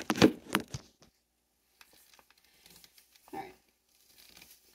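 Apple slicer-corer being pressed down into a whole raw apple: a few sharp crunching cracks in the first second as the blades cut into the fruit, then near quiet.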